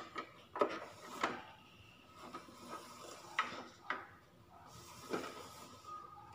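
Plastic toy school building being turned and shifted by hand on a glass tabletop: about half a dozen knocks and scrapes, the loudest about half a second and a second and a quarter in, over a faint steady tone.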